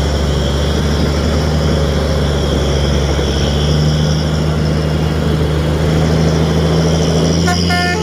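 Heavy truck's diesel engine running steadily at low speed, its pitch rising a little about halfway through. Plucked-string music starts near the end.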